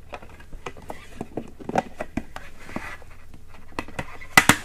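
A plastic face shield being worked onto the side mounts of an HJC RPHA 70 ST motorcycle helmet: small taps, rubs and clicks of plastic on plastic, then a couple of sharper clicks near the end as one side of the shield snaps into its mount.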